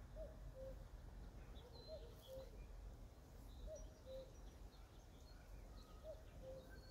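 Faint outdoor birdsong: a low two-note call, a higher note then a lower one, repeated about every two seconds, over scattered short high chirps of small birds and a low background rumble.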